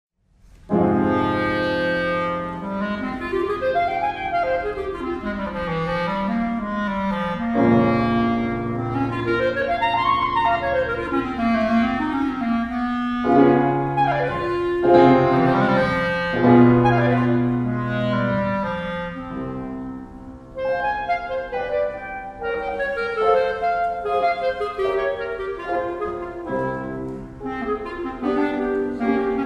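Clarinet and piano duet: the clarinet plays a winding melody with sliding, bending notes over piano chords, starting about a second in.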